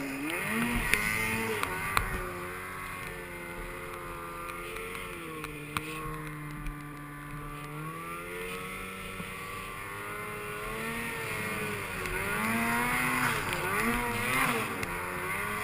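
Snowmobile engine under throttle in deep powder, its pitch rising and falling as the throttle is worked. It holds steadier through the middle, then revs up and down quickly several times near the end.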